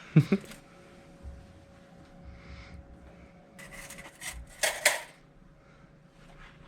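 Workshop handling noises at an engine block: a sharp click just after the start, faint light knocks, then a short burst of scraping and rustling about four to five seconds in, as a head gasket is handled and set onto the block.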